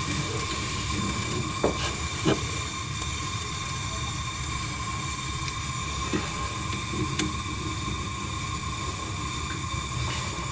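Gas blowtorch flame burning with a steady hiss while it heats a copper pipe joint being soldered. The joint still holds water, so it needs more heat than usual before the solder will flow. A few faint ticks sound over the hiss.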